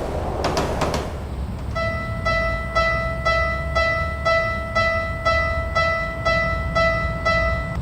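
Railway level-crossing alarm ringing a single pitched ding about twice a second, starting a little under two seconds in, over a low steady rumble. The first second holds a quick clatter of clicks.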